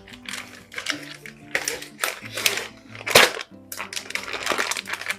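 Background music with sustained held notes, over scattered clicks and rustles of handling and one sharper knock about three seconds in.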